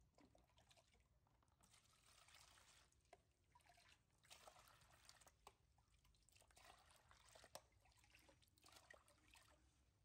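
Water scooped from a tub with a small plastic bowl and poured out, splashing and trickling in about four short pours. The sound is faint.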